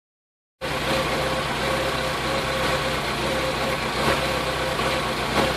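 Vauxhall VX220 engine idling with a misfire, starting up in the recording just after half a second in and running steadily, with a couple of sharper beats near the end.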